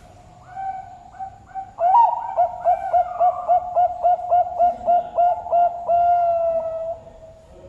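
Zebra dove (perkutut) singing its cooing song: two opening coos, then a rapid run of about a dozen short clipped coos, roughly three a second, ending in one long drawn-out coo.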